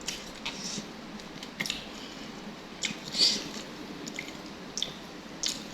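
Close-miked eating sounds: wet chewing and smacking mouth noises, scattered sharp clicks with the loudest a little past three seconds in.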